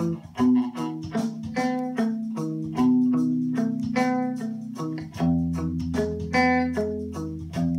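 Electric guitar picking a fast run of clean, ringing single notes, about four or five a second, over a backing track with drums and held bass notes.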